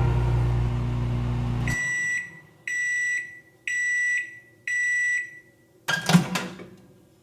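Microwave oven humming steadily, then stopping about two seconds in, followed by four evenly spaced end-of-cycle beeps about a second apart, signalling the heating cycle is done. A short clunk follows near the end.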